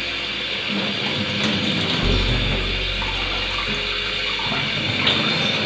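Kitchen tap running steadily into a stainless-steel sink while hands rinse cut grass jelly in a bowl under the stream, water splashing over the bowl's rim.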